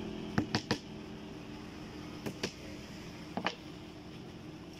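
Hand hammer tapping on wood on a door panel: three quick knocks about half a second in, two more a little past two seconds, and two near the end, over a low steady hum.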